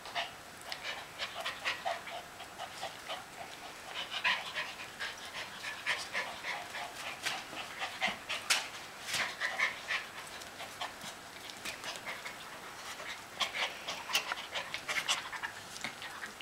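Schipperke dogs panting in short, quick breaths during play-wrestling.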